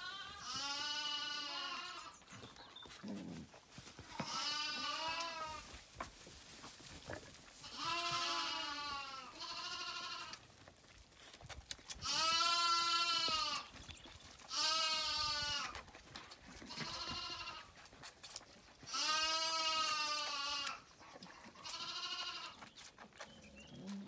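Zwartbles lambs bleating repeatedly at bottle-feeding time: about ten calls of roughly a second each, every one rising and then falling in pitch.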